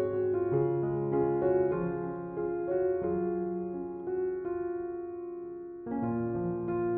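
Background piano music: soft, slow notes and chords, with a new chord struck about six seconds in.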